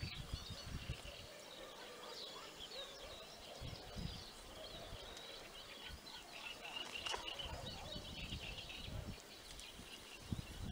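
Quiet outdoor ambience: small birds chirping faintly, over irregular low rumbles of wind on the microphone.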